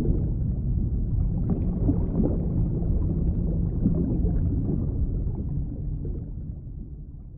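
Sea monster sound effect: a deep, rough rumbling growl that fades away over the last couple of seconds.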